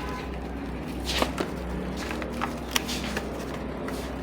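Packaging of a boxed kit being opened by hand: rustling, with a few sharp clicks and taps, over a low steady hum.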